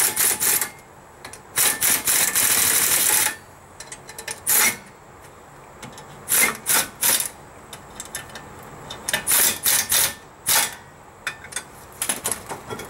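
Pneumatic air tool running in repeated bursts, the longest about two seconds early on, then several shorter ones. It is driving 8 mm bolts into the threaded holes of a rear brake rotor to press the rotor off the hub.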